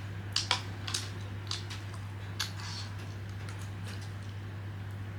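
Chopsticks clicking lightly against a dish a few times in the first half, over a steady low hum.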